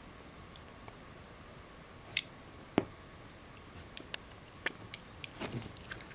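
Scattered short clicks and small jingles from a West Highland White Terrier and a Westie puppy tussling over a toy on carpet: one jingle and a sharp click a couple of seconds in, then a quick run of clicks and jingles near the end as they scramble off.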